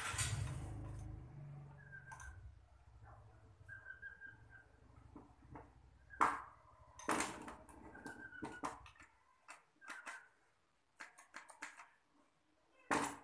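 Metal clinks and knocks of a hand tool working on a starter motor, the sharpest about six and seven seconds in and again near the end. Short high chirps come and go between them, and a low hum fades out over the first nine seconds.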